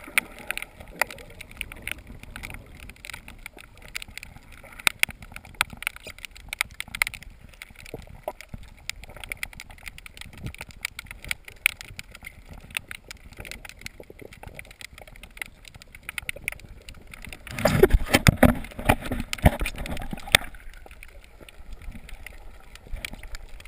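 Underwater sound heard through a GoPro's waterproof housing: a muffled wash of water dotted with constant crackling clicks. About eighteen seconds in, a louder, deeper rush of water lasts about three seconds.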